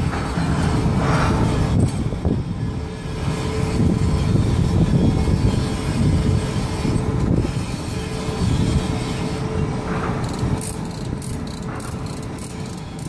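Steel lashing chains clinking and a ratchet load binder being worked to tension the chain, over a steady low machinery rumble with a constant hum. A quick run of sharp clicks comes near the end.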